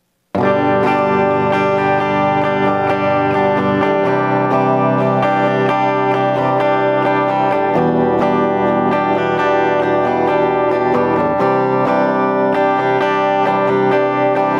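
JCraft LT1 Classic Telecaster electric guitar on its bridge pickup with the tone knob fully open, played clean and direct into a sound card with no amp or effects. Strummed chords start a moment in and run on steadily.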